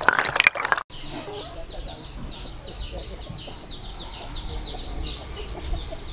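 Hands sloshing sea snail shells in a basin of water, cut off abruptly under a second in. Then chickens: a rapid, steady run of high peeping calls over lower clucking.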